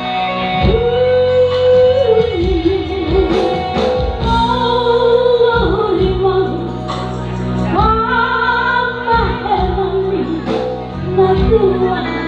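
Female voice singing long held notes with vibrato, over a steady instrumental accompaniment.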